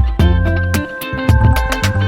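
Background music with a steady beat, plucked guitar-like notes over a bass line.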